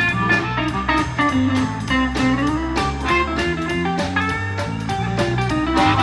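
Blues band playing an instrumental passage, with guitar over a bass line and a steady beat.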